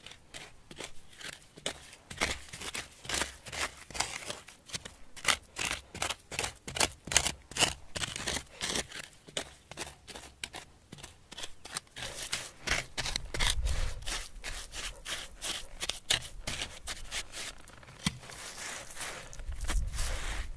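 Digging stick stabbing and scraping into dry, gravelly soil in a quick run of gritty strokes, about two to three a second. Near the end, hands scoop through the loosened dirt.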